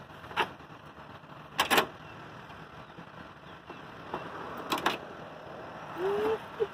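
A police sniffer dog scrambling at and into the open cab of a pickup, with a few sharp knocks and clatters as its claws and chain collar hit the door sill and cab: one about half a second in, a quick cluster near two seconds, another near five seconds. A short vocal sound that rises and falls comes near the end.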